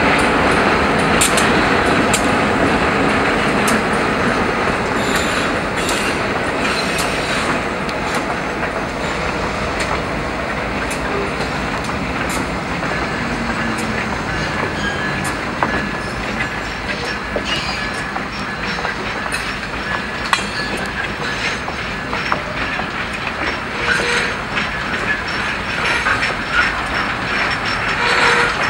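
Freight train rolling past: steel wheels clicking and clacking over the rail joints car after car, with a faint wheel squeal now and then. Loudest at first, with the locomotive close by, then falling to a steadier level as the cars go past.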